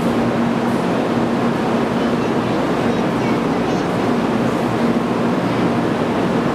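Steady noise of a Shinkansen train with a constant low hum, unchanging in level.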